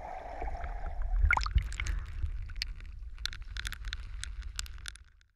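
Water sloshing and splashing around a camera at the waterline as a bear plunges and wades after fish: a steady low rumble, a brief squeak about a second and a half in, then scattered sharp ticks of splashes and drips, fading out at the end.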